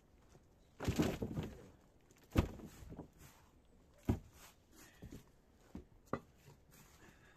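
Handfuls of soil and rotten sleeper wood scooped up by gloved hands and dropped into a metal wheelbarrow. A scraping rustle about a second in, then a series of separate knocks and thuds.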